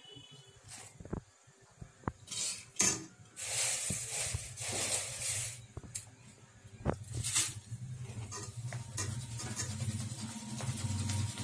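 Corn flakes deep-frying in hot oil in a kadhai, with a metal wire-mesh strainer ladle knocking against the pan a few times. The oil sizzles in spells, loudest from about 2 to 5 seconds in, as the flakes go into the hot oil. A low steady hum runs under the second half.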